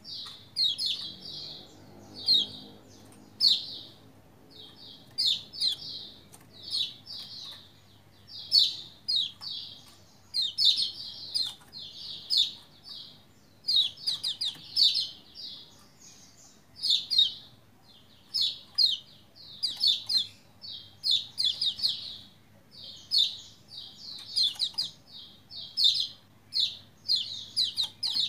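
Caged Lombok white-eye (pleci Lombok, kecial kuning) singing: quick bursts of high, rapid chirps that repeat about once a second, with short pauses between them.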